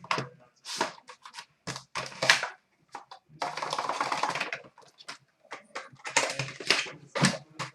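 Hockey card box and its packaging being opened by hand: a run of short crackling, clicking handling noises, with one longer rasping noise of about a second near the middle.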